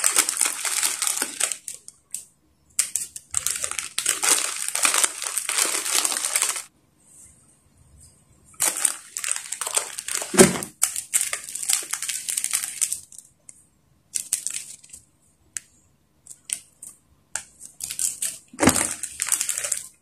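Plastic instant-noodle packets and seasoning sachets crinkling and tearing as they are handled and opened, in bursts with short silent gaps. Two sharper knocks come about ten seconds in and near the end.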